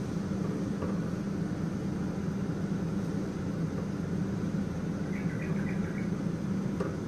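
A steady low hum of a running kitchen fan or appliance motor, with a few faint scrapes of a silicone spatula stirring dry flour and cocoa in a ceramic bowl about two-thirds of the way in.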